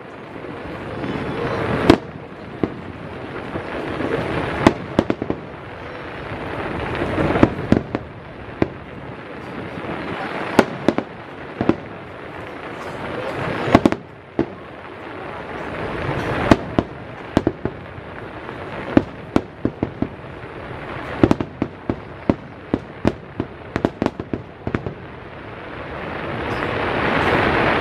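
Aerial fireworks shells bursting: many sharp bangs at uneven intervals, coming in quicker runs in the second half, over a rushing background noise that swells and fades every few seconds.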